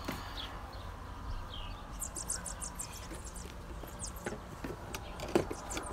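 Small birds chirping in quick high calls over a faint low background rumble. Several sharp plastic knocks come near the end as the shredder's housing and collection bin are handled and fitted together.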